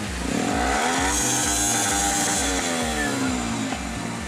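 Motorcycle engine revved once: its pitch climbs over about the first second, holds, then falls back towards idle around three seconds in. A steady low pulse, about two and a half beats a second, runs underneath.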